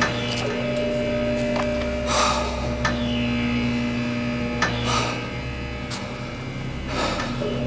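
Steady low electrical hum, like mains hum, with a few brief soft swishes over it.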